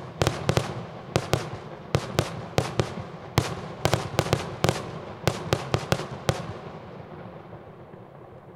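Daytime aerial fireworks bursting overhead: a rapid, irregular volley of many sharp bangs. The bangs stop about six seconds in, and the echo dies away.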